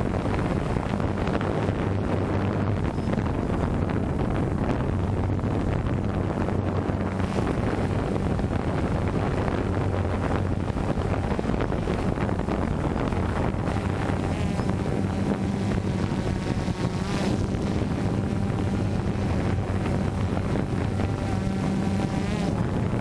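DJI Phantom 2 quadcopter's electric motors and propellers running, picked up by the GoPro on board: a steady low drone with wind buffeting the microphone. From about two-thirds of the way in, a motor whine wavers up and down in pitch as the motors change speed.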